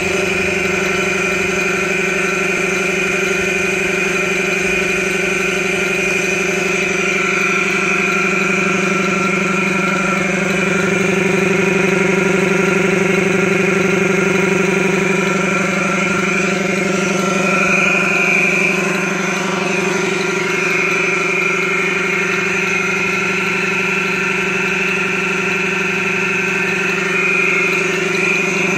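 Belt-driven electric air compressor on a 10-gallon tank running steadily, its motor and single-cylinder pump holding an even pitch.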